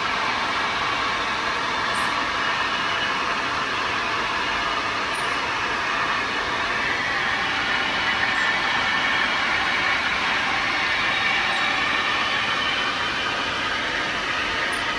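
Fully automatic crystal pendant making machine running, a steady even mechanical noise without breaks.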